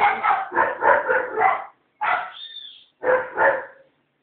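A dog barking loudly: a run of short barks in three groups, with brief pauses about two and three seconds in.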